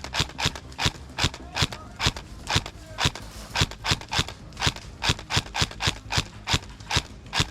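Running footsteps of an airsoft player, heavy regular footfalls at about three a second with gear jostling on each step, stopping near the end.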